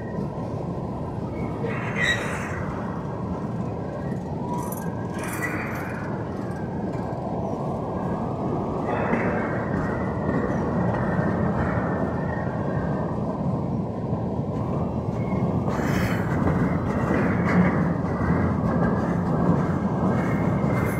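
Freight train cars rolling past at close range: a steady rumble of steel wheels on rail. A faint high tone runs underneath, and brief brighter swells come every few seconds.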